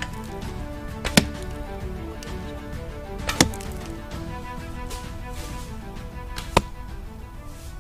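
Arrows striking the leaf-covered ground beside a mossy log: three sharp thwacks about two seconds apart, over background music.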